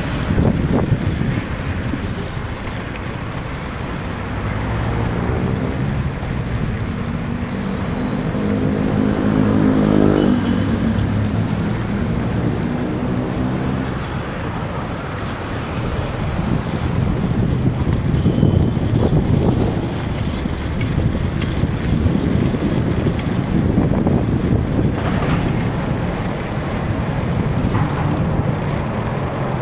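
City street traffic heard from a moving bike: a steady rumble of road and wind noise, with cars going by. Between about 6 and 12 seconds in, a motor vehicle passes close, its engine tone rising and then falling away.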